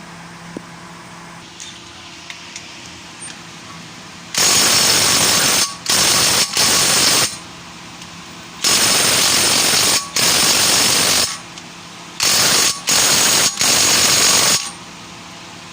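Pneumatic air tool run in eight loud bursts of half a second to a second and a half each, starting about four seconds in, over a faint steady hum.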